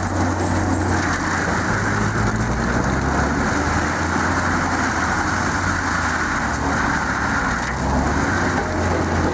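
630-horsepower AHWI RT 800 tracked forestry mulcher running steadily, its big engine giving a continuous low drone under a broad rushing noise.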